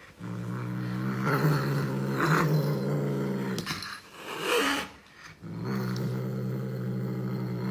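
A pet growling: two long, low, steady growls, with a short higher call between them about four and a half seconds in.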